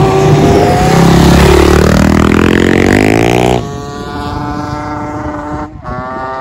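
Vehicle engine speeding up, its pitch rising for about two seconds, then cutting suddenly to a quieter engine running at a steadier pitch, with a brief break near the end.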